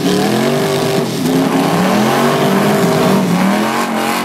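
A drag car's engine revving hard during a burnout. It is held at high revs that dip and climb again several times.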